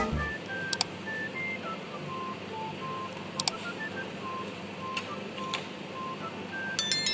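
A slow melody of soft, single electronic tones stepping up and down in pitch, a quiet passage of background music, with a few faint clicks and a brighter chime near the end.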